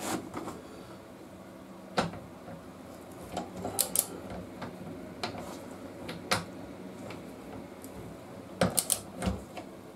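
Hand tools and metal parts being handled during rear-axle work on a motorcycle: scattered sharp clicks and knocks, one about two seconds in and a quick cluster near the end.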